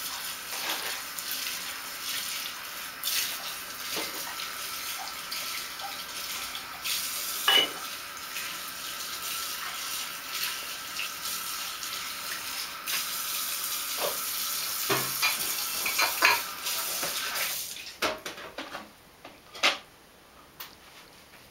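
Tap water running steadily, with dishes and cutlery clinking now and then. The water stops abruptly about eighteen seconds in, and a few clinks follow.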